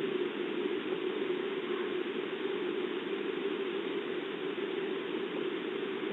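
Steady rain hiss through a Ring security camera's microphone, even throughout with no separate drips or knocks.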